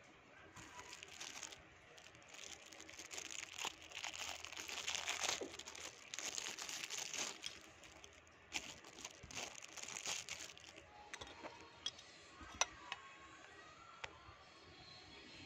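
Clear plastic packaging crinkling as it is handled, dense and continuous for most of the first eleven seconds, then giving way to a few separate sharp plastic clicks.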